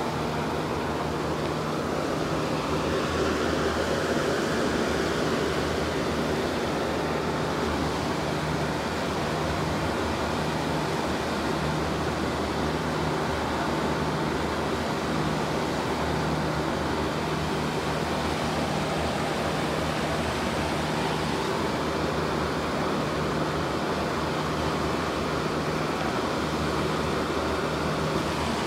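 Steady low machine hum under a constant rushing noise.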